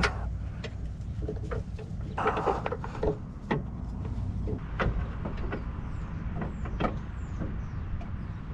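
Scattered clicks and knocks of an LED headlight bulb being twisted and pushed into the back of a Chevy Silverado's headlight housing, its locking tabs not lining up with the slots, over a steady low hum.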